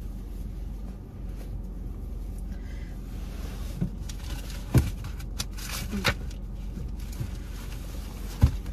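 Steady low hum of a car's cabin with the engine idling, broken by a few dull thumps and rustles of someone shifting in the seat and reaching across the car; the loudest thumps come about five seconds in and near the end.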